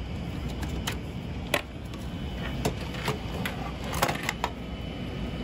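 Scattered light clicks and knocks of computer cables being unplugged and handled, about eight in all, over a low steady room hum.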